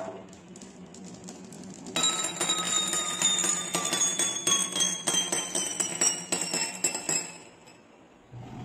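Glass marbles clinking and rattling against each other and a glass, with a ringing that slowly falls in pitch. It starts suddenly about two seconds in, runs for about five seconds, then dies away.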